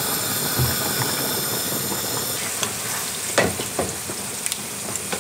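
Seasoned salmon pieces sizzling in olive oil in a nonstick frying pan. About halfway through a plastic spatula starts scraping and turning them, a few short strokes against the pan.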